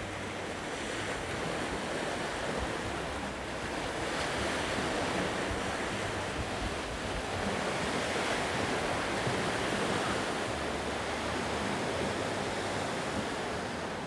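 Sea waves washing ashore: a steady surf hiss that swells and eases gently, with some wind rumble on the microphone.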